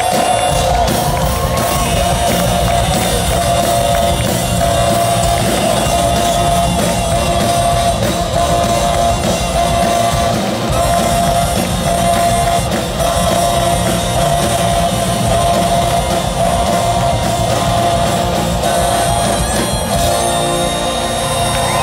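Loud live brass-band funk from a large horn section, sousaphone, electric guitar and drums, heard through the PA from within the audience.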